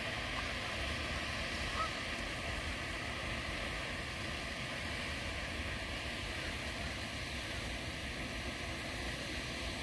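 Steady outdoor rushing background noise, with a single faint short chirp about two seconds in.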